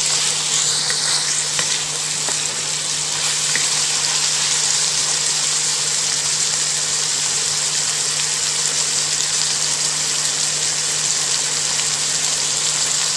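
Marinated pork pieces with onions and garlic sizzling steadily in hot oil in a pan, stirred with a wooden spatula as the pork cooks through.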